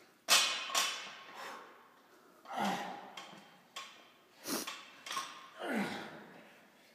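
A man's hard, noisy breaths as he rows a plate-loaded T-bar, one with each pull, about every one to two seconds; the loudest comes suddenly just after the start.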